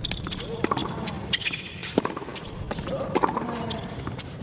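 Tennis rally on a hard court: racquets striking the ball and the ball bouncing, a sharp pop about every second, with the short squeaks of players' shoes on the court.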